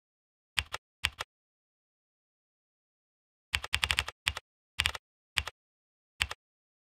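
Computer keyboard typing: short runs of quick keystroke clicks, a couple of pairs about half a second in and at one second, then a pause of about two seconds, then a fast flurry followed by single keystrokes near the end.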